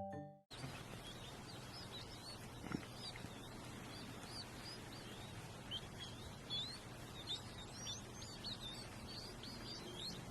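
Small birds chirping, many short high chirps one after another, faint over a steady background hiss.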